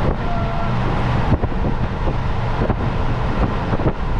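Motorhome on the move: steady engine hum and road noise with wind buffeting the microphone, and a few short knocks or rattles, the sharpest about a second in.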